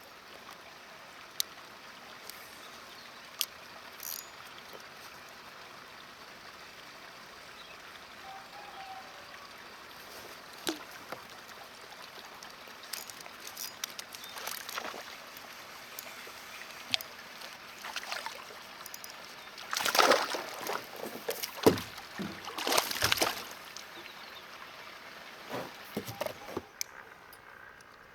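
Water sloshing and trickling against a fishing kayak, with scattered small clicks and a few louder sloshes, the strongest about two-thirds of the way in.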